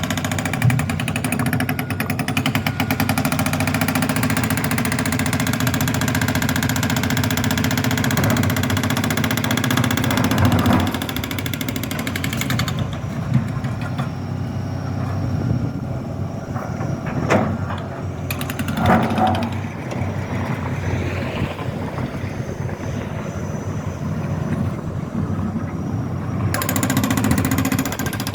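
Road-breaking jackhammer rattling rapidly over a running diesel engine of construction machinery. The hammering stops about twelve seconds in, leaving the engine and a few scattered knocks, then starts again near the end.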